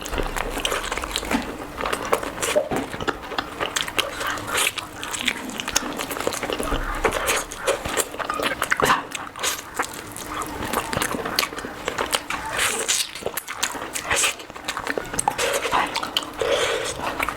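Close-miked eating sounds: wet chewing and lip-smacking of curry and rice, a dense run of quick clicks and smacks.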